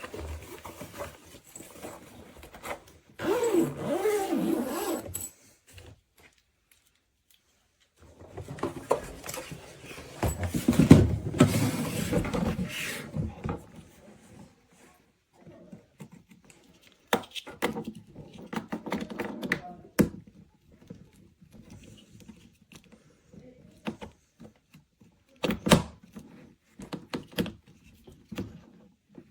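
Handling noises: scattered clicks and knocks, with two longer stretches of rubbing or rolling noise, the louder one about ten to thirteen seconds in, and sharp clicks about twenty and twenty-five seconds in.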